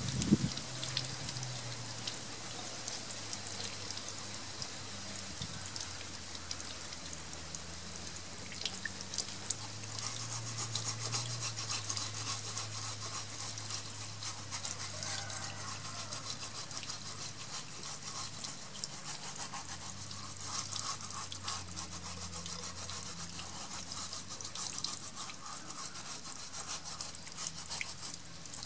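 A small brush scrubbing a turtle's shell in quick scratchy strokes, over water running and splashing on tiles.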